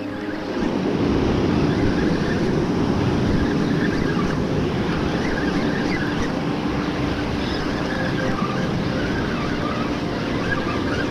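Ocean surf breaking and washing over rocks, a steady rushing, with wind noise on the microphone.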